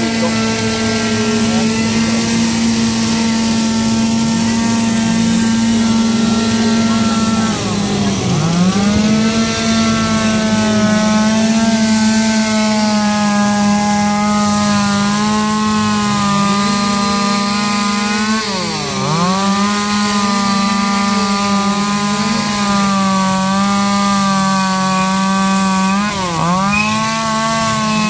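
Two-stroke gas chainsaw running at high revs as it carves into a log. Its pitch dips sharply and comes straight back up three times, once about 8 seconds in, once near 19 seconds and once near 26 seconds.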